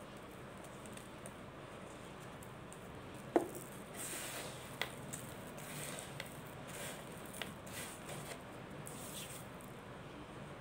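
Mothball cake crushed between fingers: one sharp crack about three seconds in, then a run of gritty crunching and crackling as it crumbles to powder.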